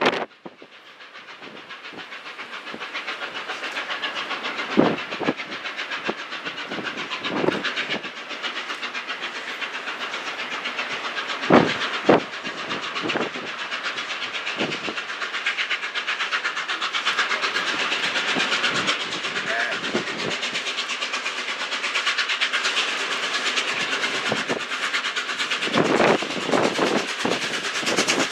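Peppercorn A1 Pacific steam locomotive 60163 Tornado accelerating hard, its rapid exhaust beats and the train's running noise growing steadily louder as it approaches. Gusts of strong wind buffet the microphone several times with low thumps.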